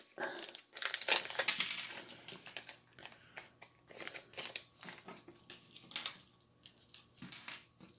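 Plastic zip bag of a diamond painting tool kit crinkling and rustling irregularly as it is handled and opened and the small plastic tools inside are pulled out.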